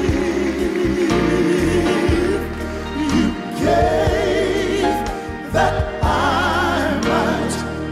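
Live gospel song: male voices singing long held notes with vibrato over a band with steady bass, a choir backing them.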